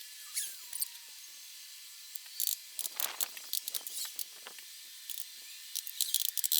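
Irregular short scraping and scratching sounds of hand work on an old window sash, in clusters around the middle and near the end, over a faint steady hum.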